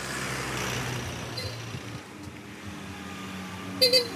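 A motor vehicle's engine running as it comes along the road, growing slightly louder, with two short horn beeps near the end.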